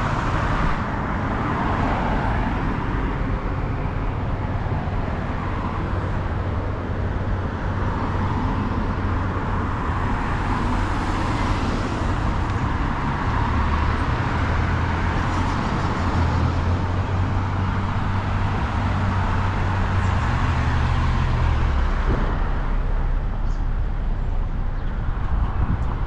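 Steady downtown street traffic noise: vehicles running and passing, with a deeper engine rumble that swells in the middle and drops away near the end.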